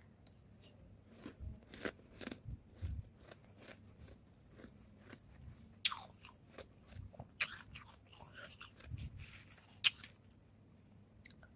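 Powdery freezer frost being bitten and chewed: irregular soft crunches, with a few sharper, louder crunches about six, seven and a half and ten seconds in.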